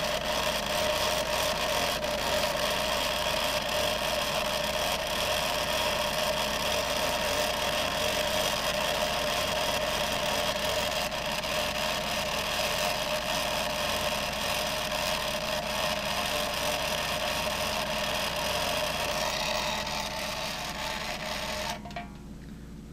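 Small electric motor of a homemade Van de Graaff generator running steadily, driving its rubber-band belt, with a constant whine over a hiss. It stops suddenly near the end as the machine is switched off.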